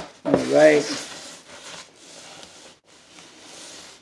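Faint rustling handling noise while the drywall piece or the camera is moved into position.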